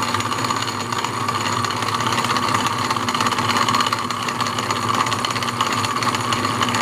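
1920s Wade bench lathe running steadily under its belt drive, its tool bit taking a cut along a spinning piece of maple as the carriage feeds in.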